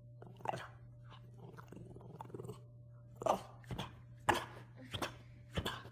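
French bulldog making a series of short, sharp vocal sounds at a cat, the loudest few coming about three to five seconds in, over a steady low hum.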